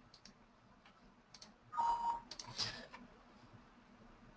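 Faint computer mouse clicks and a short system alert chime from the computer as a software message box pops up, followed by another brief click.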